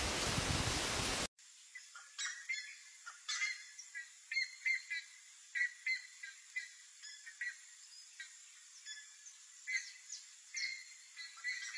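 A loud, harsh bird sound from a bearded bellbird cuts off abruptly about a second in. A run of short, sharp bird calls follows, coming unevenly, about one or two a second.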